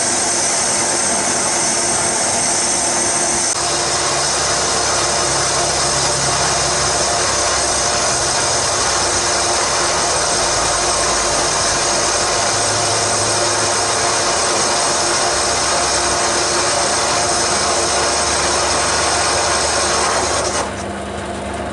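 Small metal lathe running while a turning tool faces a cast iron backing plate: a steady machine whine under a dense hiss of cutting. Near the end the hiss drops away and the sound gets quieter.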